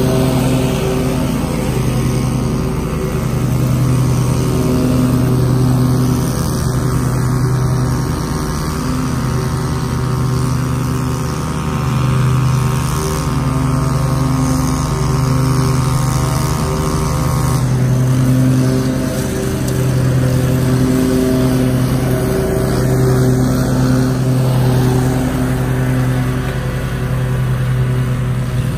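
Commercial lawn mower engine running steadily while mowing, its level rising and falling a little as it moves, together with a string trimmer's small engine running; the trimmer's higher note stops abruptly about two-thirds of the way through.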